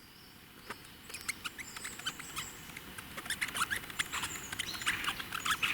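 Fleecy milk-cap (Lactarius vellereus) being rubbed against front teeth, giving rapid short squeaks. The squeaks start about a second in and grow louder and denser. The squeaking identifies the mushroom as a fleecy milk-cap (скрипица) rather than a peppery milk-cap look-alike (подгруздок).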